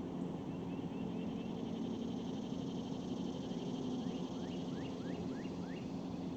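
A bird calling in runs of short, quickly rising notes, a few in the first second and a faster series of about five near the end, over a steady low hum.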